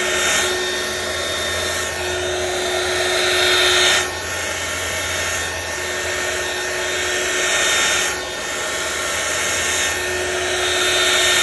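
Handheld heat gun running on a raised setting, a steady rush of hot blown air that swells and dips a couple of times as it is swept over wet epoxy resin to blend the colours.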